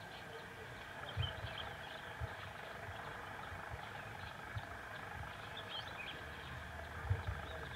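Rural outdoor ambience: a steady background hiss with a few faint, short bird chirps and several soft low thumps, the clearest about a second in and again near the end.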